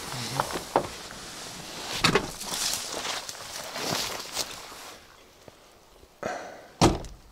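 Rustling and handling knocks as people move about a Toyota Land Cruiser 80, with one loud sharp thunk near the end.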